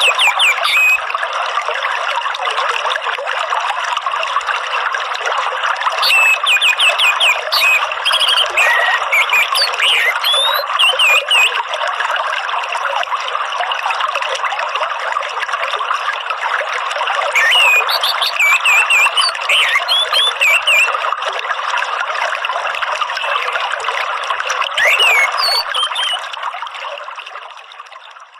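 Steady running, trickling water with an orange-headed thrush singing over it in several bursts of quick, varied whistled phrases. The sound fades out near the end.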